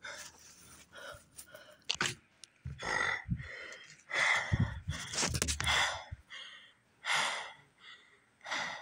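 A person breathing hard and gasping, in short noisy breaths about once a second, as if out of breath, with a few low thumps in between.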